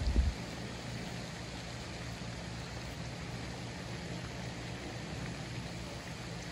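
Steady outdoor background hiss with a low, even hum under it, and a short low thump right at the start.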